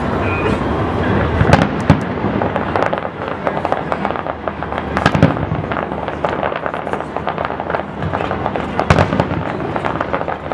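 Aerial fireworks display: shells bursting with dense, continuous crackling and several loud booms, the strongest about two seconds in, about five seconds in and near nine seconds.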